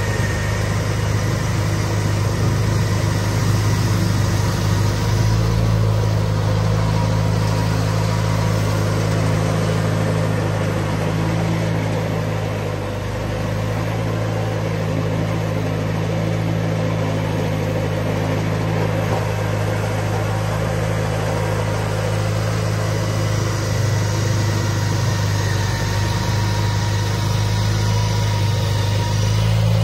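1992 John Deere 318 garden tractor's two-cylinder engine running steadily under load while driving its front-mounted snowblower through heavy wet snow. The engine sound dips briefly about halfway through.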